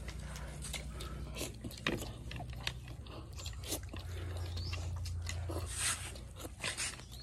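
Several people slurping and chewing Maggi instant noodles eaten with chopsticks: a run of short, irregular slurps and mouth smacks.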